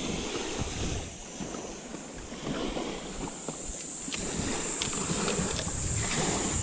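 Wind buffeting the microphone with a gusty low rumble, mixed with scuffs and clothing rustle from clambering over rocks, and a few faint clicks.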